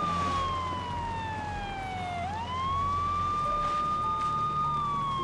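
Police car siren wailing: a high tone holds, slides down over about two seconds, swoops quickly back up and holds, then starts falling again near the end, over a low steady hum.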